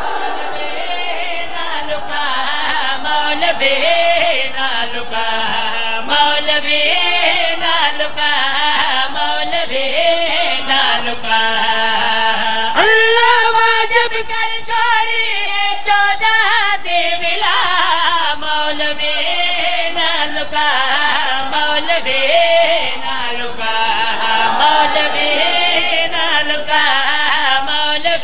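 Devotional qasida sung in a long, melodic chant, the voice gliding through drawn-out, ornamented lines with few breaks.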